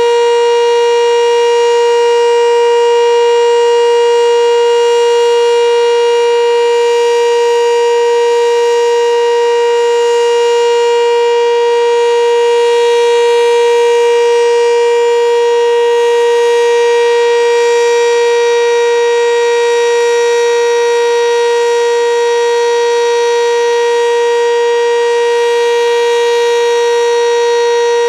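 Sentry 7V8 outdoor warning siren sounding its steady alert signal: one loud, unwavering tone held throughout.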